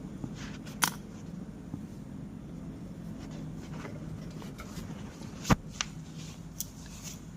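A few short, sharp clicks and knocks from hands handling tools or parts, the loudest a little past halfway, over a steady low hum.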